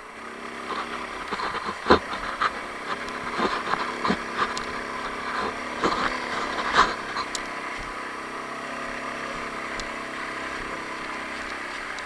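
Taotao 150cc ATV's single-cylinder four-stroke engine running on the trail, with a string of sharp knocks and rattles over the first several seconds, then a steady engine note.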